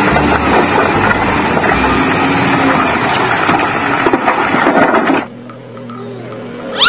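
LiuGong ZL50CN wheel loader working a rock pile: its engine running under load while rocks clatter and grind against the steel bucket. The sound cuts off abruptly about five seconds in, leaving a much quieter background and a short rising tone near the end.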